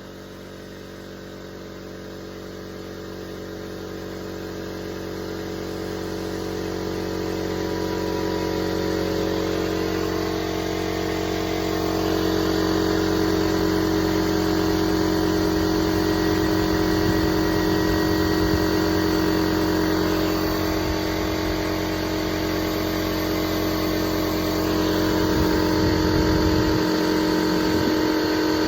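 Air compressor running, pushing air into pool plumbing to pressure-test a leaking line. It grows louder over the first several seconds, then holds steady.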